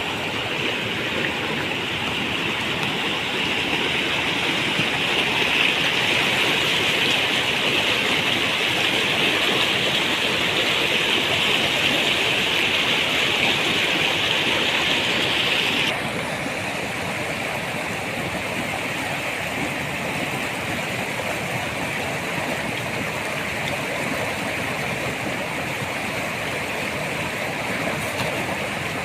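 Rushing water of a stream or channel, a steady loud wash of flowing water. It changes abruptly about halfway through, becoming slightly quieter and duller.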